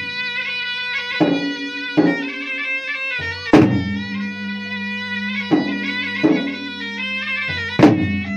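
Bugis-Makassar gendang ensemble: double-headed barrel drums beaten with stick and hand in loud, sharp accented strokes every second or so, the strongest a few seconds in. Under them runs a continuous droning, bagpipe-like melody from a reed pipe (puik-puik).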